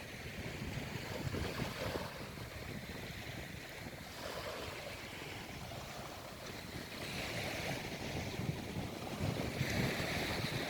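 Sea waves breaking and washing up a beach, swelling in surges every two to three seconds, the last near the end the loudest. Wind buffets the microphone underneath.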